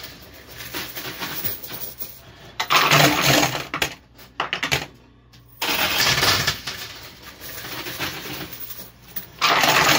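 Coins and plastic casino chips clattering inside a coin pusher machine. Three loud bursts of clatter come a few seconds apart, with lighter rattling between them.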